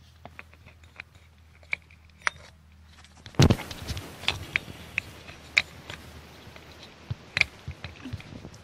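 Scattered sharp clicks and knocks of handling, with one heavy thump about three and a half seconds in as the recording phone is set down; more clicks and knocks follow.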